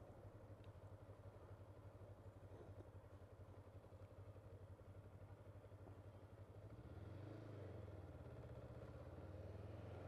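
Faint engine of a Kawasaki Ninja sport motorcycle running at low parking-lot speed, a steady low hum with fast even pulsing. From about seven seconds in it gets a little louder and its pitch wavers as the throttle changes.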